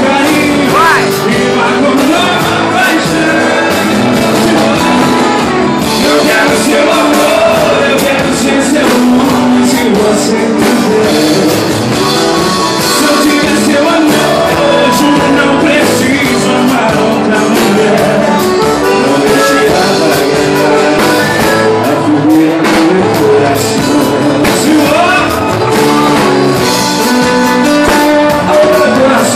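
Live sertanejo band playing a song with a lead vocal over amplified guitar.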